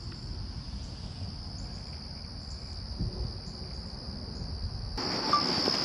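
Crickets trilling in a steady high chorus over a low rumble; the sound steps up in loudness suddenly about five seconds in.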